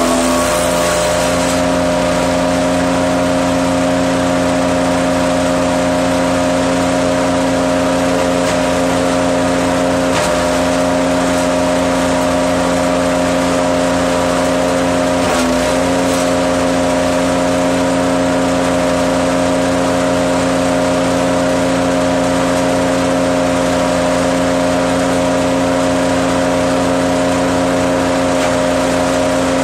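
Petrol engine of a Hecht 6642 gasoline wood chipper running steadily at high speed, dipping briefly twice, around ten and fifteen seconds in.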